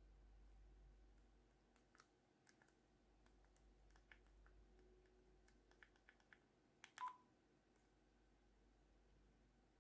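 Faint taps and clicks of a phone being dialled to place a call, about a dozen scattered over several seconds, with a short beep about seven seconds in; otherwise near silence.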